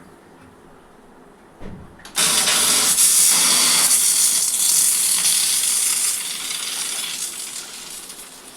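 Pressure cooker venting steam: after a brief knock, a loud hiss starts suddenly about two seconds in and eases off near the end. It is a plain rushing hiss with no whistle tone, the cooker failing to whistle.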